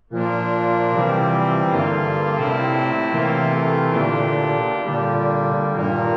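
1889 Merklin pipe organ coming in at once with loud, full sustained chords after a rest, its bass notes shifting every second or so under the held harmony.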